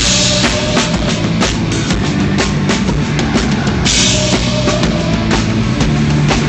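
Rock band playing live on stage: a driving drum kit with kick and snare over bass and guitar, with a cymbal crash wash near the start and again about four seconds in, heard through a low-quality stream that cuts off the treble.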